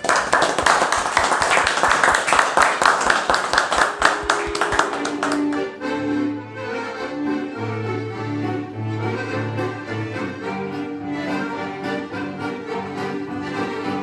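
A group clapping for about five seconds, then piano accordions playing a tune together, with held low notes under the melody.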